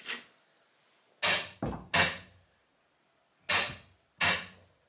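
Six sharp metal clacks from a click-type torque wrench and the beam tester it is fitted to. Three come close together between one and two seconds in, and two more follow later, each dying away quickly.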